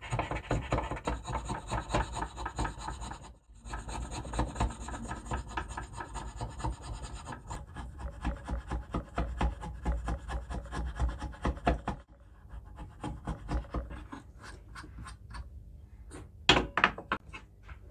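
Steel chisel paring shavings off a wooden broom-handle dowel held in a vise, rapid repeated scraping strokes shaping the end into a new hammer handle. A single sharp knock near the end.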